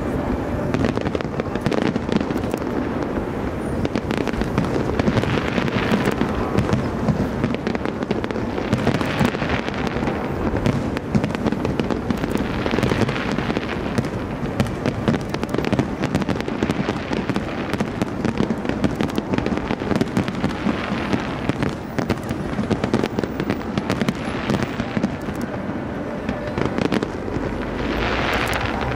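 Aerial firework shells bursting in a continuous barrage: a dense run of bangs and crackling, with several swells of crackle, the strongest near the end.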